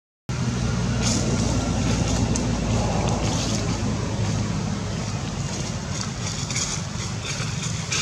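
Steady low rumbling background noise, with a few faint crackles on top.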